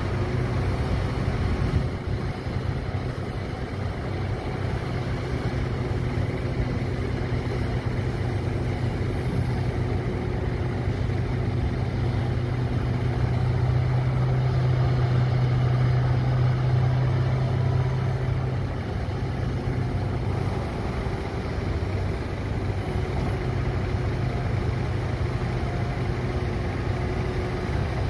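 Heavy diesel engines of a Komatsu PC1250 hydraulic excavator loading a Komatsu HD785 dump truck, running with a steady low hum. The engine note grows louder for several seconds around the middle, then settles back.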